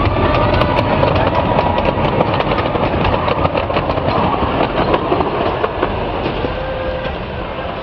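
Miniature 15-inch gauge train hauled by a diesel locomotive rolling past, its wheels clicking rapidly over the rail joints over a steady rumble; the sound eases off slightly near the end.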